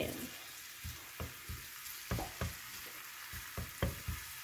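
Minced garlic sizzling in olive oil in a frying pan over low heat, while a wooden spatula stirs and scrapes against the pan about twice a second in irregular strokes.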